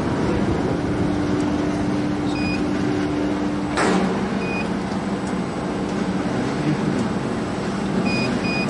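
Wood-pellet biomass burner running, its blower and flame giving a steady rushing noise, with a steady hum that stops at a sharp click about four seconds in. Short electronic beeps come from its control panel, several near the end as its touchscreen is pressed.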